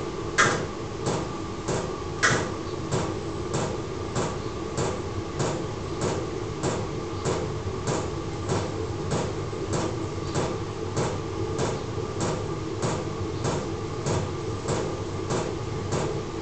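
A 12-volt diesel air heater running: a steady fan hum with its fuel pump ticking evenly, just under two ticks a second.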